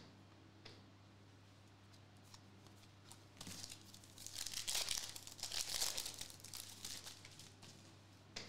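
Trading cards and a foil card-pack wrapper being handled: a few light clicks, then about four seconds of crinkling, tearing-like rustle starting about three seconds in.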